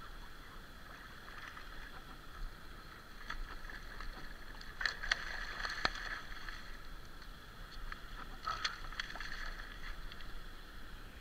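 Water splashing as a hooked catfish thrashes at the surface and is scooped into a landing net, with a cluster of sharp splashes about five seconds in and another near nine seconds.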